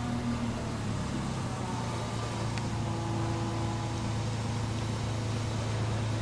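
Steady low mechanical hum of running machinery, unchanging throughout.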